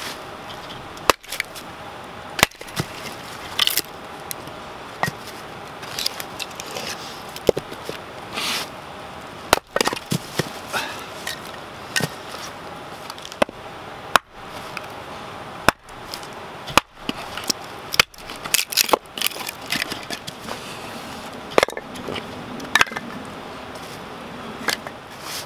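Hatchet splitting firewood on a wooden chopping block: a long run of sharp, irregularly spaced chops into the wood, some with the crack of a piece splitting off.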